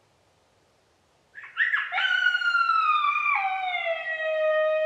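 Coyote howl. After a short quiet, a few quick rising notes lead into one long howl that slides down in pitch and drops a step about halfway through.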